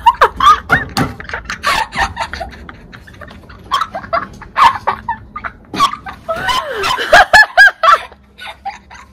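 A woman laughing hard in short, cackling bursts, breaking into high squeals about seven seconds in.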